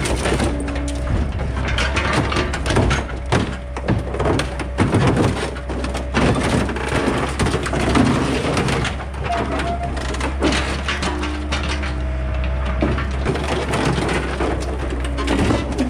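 Mini excavator bucket crushing and tearing the rusted sheet-steel bed of a pickup truck: repeated irregular crunching, cracking and scraping of metal, over the steady running of the excavator's engine.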